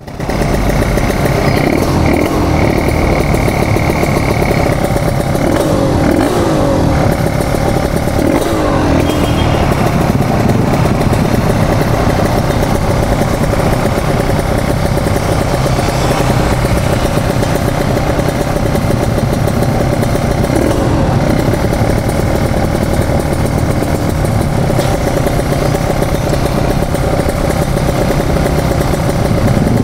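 Kawasaki Ninja RR 150 two-stroke single-cylinder engine running at speed under way, with a steady rush of wind. Its pitch rises and falls a few times in the first ten seconds, then holds steady.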